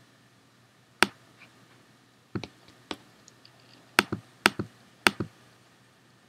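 Short, sharp clicks of a computer's pointing device, about six of them at uneven intervals, a few in quick pairs, as an image is opened and zoomed in on.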